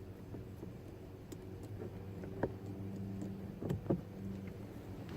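A few light clicks from handling and fitting the Nissan Altima's master power-window switch and its connector, the sharpest about two and a half seconds in and a pair near four seconds, over a steady low hum.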